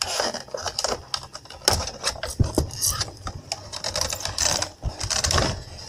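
Hands opening a cardboard display box and drawing out its plastic packaging: rustling and scraping with many sharp clicks and ticks.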